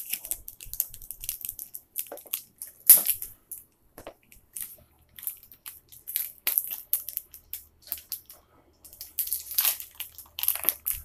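Crinkling and crackling of a Pokémon card booster pack's foil wrapper and its cards being handled and opened, in short irregular bursts with a brief lull partway through.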